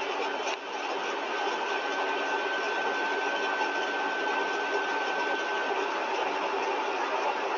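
Single-stage rotor–stator compressor test rig running steadily at 80% of design speed while its flow is throttled back along the speed line. It makes a steady machine noise, with a high steady tone that comes in about a second in and stops near six seconds.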